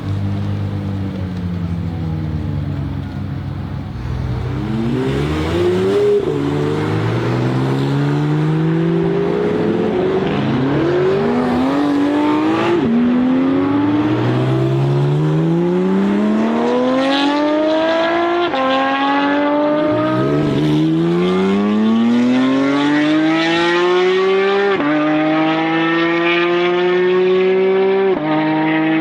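High-performance car engine accelerating hard through the gears. It starts on a steady low note, then from about four seconds in the pitch climbs and drops sharply at each upshift, several times over, ending on a long high pull.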